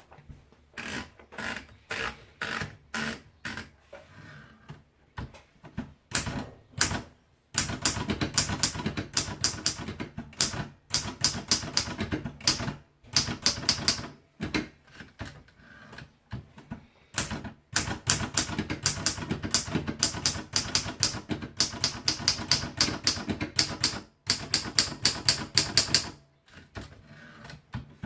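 Royal Diana manual portable typewriter being typed on: a few slow, spaced keystrokes at first, then fast continuous typing from about seven seconds in, broken by a few short pauses.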